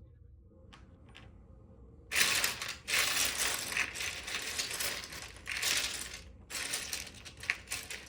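Loose plastic LEGO pieces clattering as hands rummage through a pile of used bricks: two light clicks, then from about two seconds in a dense rattling clatter in several surges.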